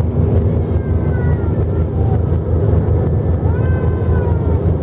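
Steady in-cabin rumble of an Airbus A319-132's IAE V2500 engines and airflow during the climb after take-off, heard from a seat over the wing. Faint high-pitched gliding calls rise over it about a second in and again near the end.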